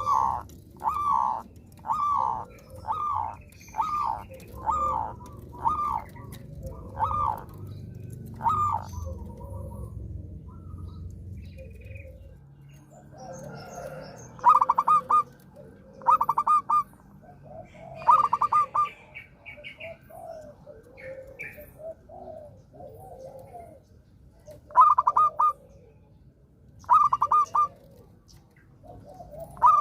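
Zebra dove (perkutut) cooing: a run of repeated notes about one a second, then after a short pause, phrases of quick stuttering notes every couple of seconds. Softer calls sound underneath, and a low hum stops about halfway through.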